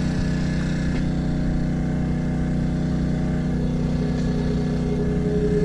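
A small petrol engine running steadily at a constant pitch, a continuous low drone with no change in speed.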